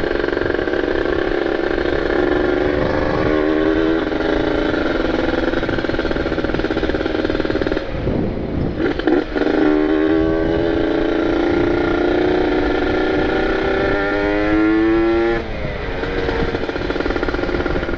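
Freshly ported Kawasaki Ninja 150 RR single-cylinder two-stroke engine under way, being run in: the revs climb, dip briefly about eight seconds in, then rise steadily for several seconds before the throttle comes off near the end.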